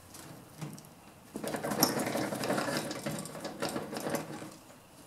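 Small wheel's metal hub rattling and clicking against its axle as the wheel is worked off, a rapid clatter starting just over a second in and lasting about three seconds.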